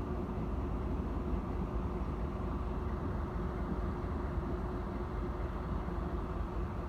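DD5515 diesel locomotive's engine running steadily, a low rumble with a constant hum.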